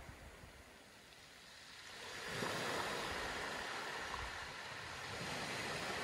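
Sea waves washing on a shore: a rushing surf sound that ebbs about a second in and swells again a little after two seconds.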